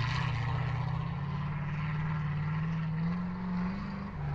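ZIL-130 truck's V8 petrol engine running under load, its pitch climbing slowly, then dropping suddenly near the end.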